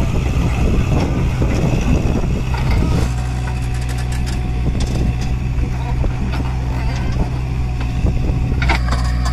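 Diesel engines of a JCB 3DX backhoe loader and a Kubota tractor running steadily as the backhoe works its arm, with scattered knocks. Near the end a bucketload of wet mud drops into the steel tractor trolley with a clattering thud.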